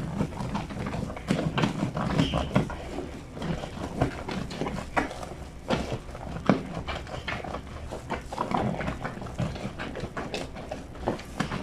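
Wet fleece sheets being hand-washed in a granite laundry sink: irregular wet slaps, squelches and knocks of soapy fabric being scrubbed and worked against the stone.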